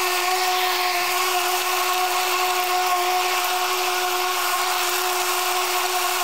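Stiga Twinclip 950 cordless battery lawnmower running while mowing thick, lush grass: a steady, even electric motor whine.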